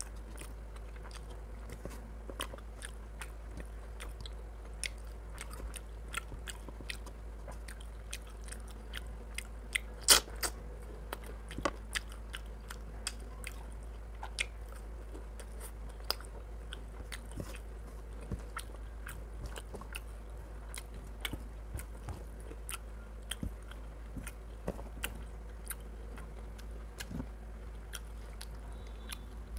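Close-up chewing and biting of a man eating chicken curry and rice by hand, a string of short, sharp mouth clicks and smacks, the loudest about ten seconds in.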